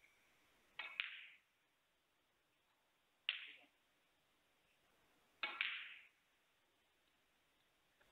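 Snooker balls clicking: three sharp knocks of cue tip on cue ball and ball on ball, the first and last each a quick double click. Each knock rings briefly before dying away.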